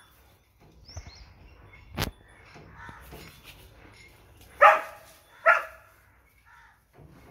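Doberman puppy barking twice, two short barks about a second apart, after a sharp knock a couple of seconds earlier.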